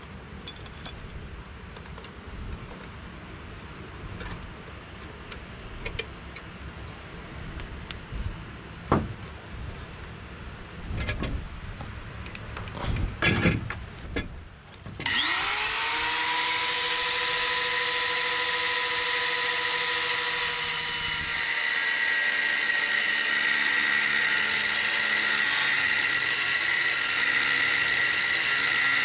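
Scattered knocks and clicks of a C-clamp being set on metal brackets over timber. About halfway an electric angle grinder spins up with a rising whine and then runs at a steady high pitch, its disc cutting into a clamped steel bracket.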